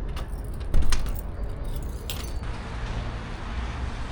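A few sharp clinks and knocks of objects being handled, then a steady low rumble from about two and a half seconds in.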